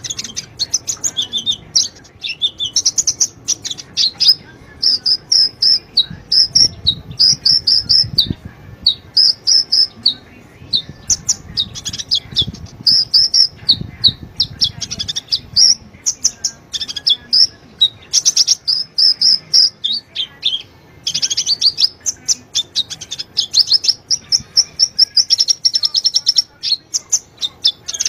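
Sunbird song: rapid, high-pitched chirping in quick phrases with short gaps between them. It is a lure recording of the kind played to coax a caged sunbird into singing.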